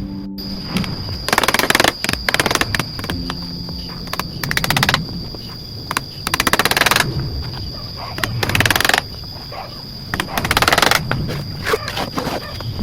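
Repeated rasping strokes of a hand tool working wood or bamboo, each about half a second to a second long and coming about every two seconds, over background music.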